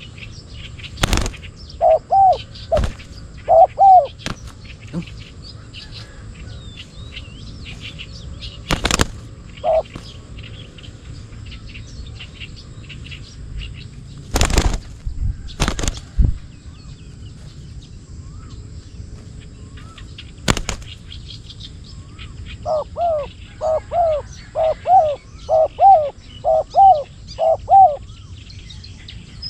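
Spotted doves cooing: a few short coos in the first seconds, then a run of about ten coos near the end. Small birds chirp throughout over a steady high whine, and about six sharp knocks come at scattered moments.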